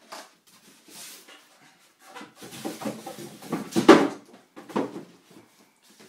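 Styrofoam packing blocks squeaking and scraping against the cardboard box as they are worked out. The sound comes in a run of irregular rubs that peak about four seconds in.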